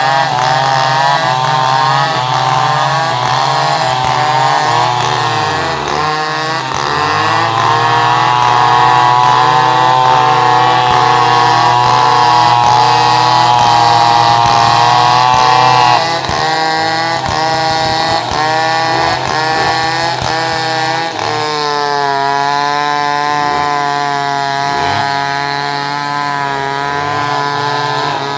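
Two-stroke chainsaw running hard, its engine pitch repeatedly dipping and recovering as if under load in a cut. The level drops suddenly about 16 seconds in, then the saw runs on.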